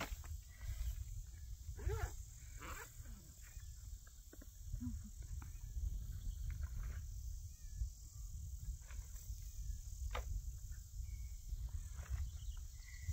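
Wind rumbling on the microphone, with scattered rustles and clicks as a backpack is searched through by hand.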